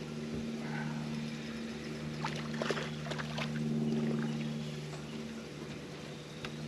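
Steady low electric hum of a boat's trolling motor holding position, with a few light clicks and knocks about halfway through.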